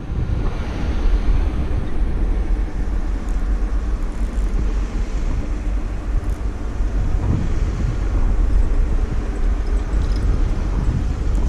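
Steady low rumble of wind buffeting the microphone, with no speech.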